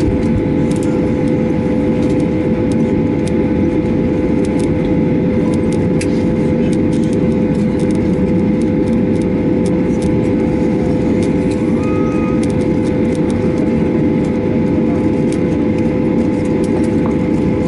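Airliner cabin noise while taxiing after landing: the jet engines running at idle give a steady rumble with a steady held hum through it.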